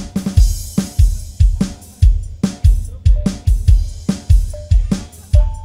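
Live koplo campursari music in a drum-led passage without singing: deep drum strokes keep a fast, steady beat, with short pitched percussion notes over it.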